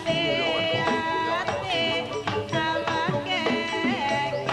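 Background music: a melody of held, wavering notes over drum strokes.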